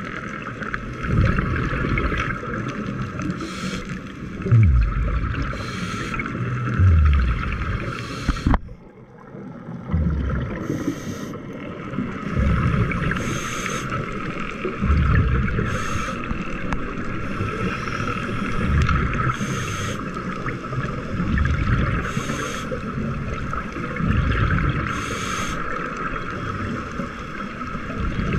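Scuba breathing heard underwater: a short hiss from the regulator every two to three seconds, alternating with the low bubbling of exhaled air.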